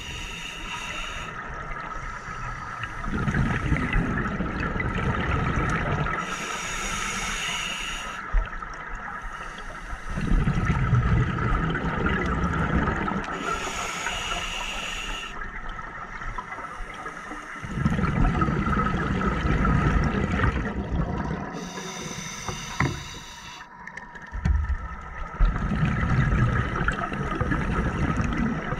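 Scuba diver breathing through a regulator underwater: a short hiss on each inhale alternating with a louder rush of exhaled bubbles, about four slow breaths in a steady rhythm.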